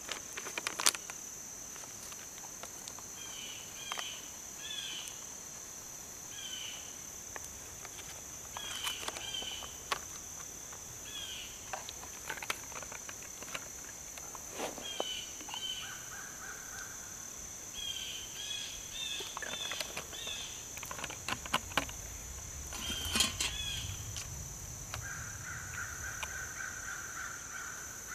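Outdoor woodland ambience: insects droning at a steady high pitch and a bird calling in short repeated chirps, with a second, lower buzz coming in near the end. Scattered clicks and rustles come from hands pouring dry mix into a bowl and stirring it with a spoon.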